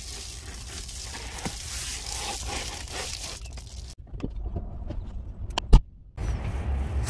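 Rustling and handling noise inside a pickup truck cab, then several sharp clicks ending in one loud clack, followed by a low rumble near the end.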